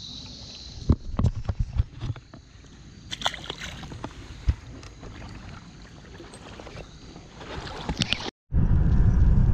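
Scattered knocks and thumps of handling gear and boat over a steady outdoor hiss. About eight seconds in, this cuts off abruptly to a loud, steady low rumble of road noise inside a moving car.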